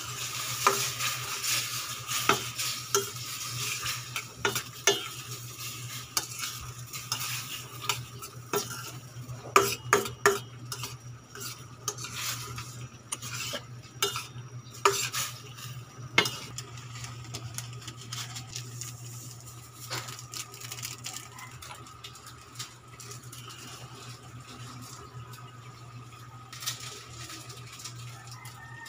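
A metal spoon stirring squid in a stainless-steel wok, with repeated clanks against the pan over the sizzle of the squid cooking in its sauce. The sizzle is loudest in the first few seconds, and the clanks thin out after about 16 s. A steady low hum runs underneath.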